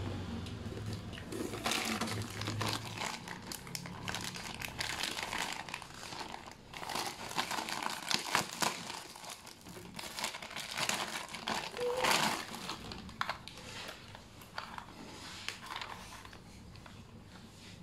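Thin clear plastic wrapping crinkling and tearing as it is pulled off a plastic toy bus by hand. The crackles and rustles come in irregular bursts.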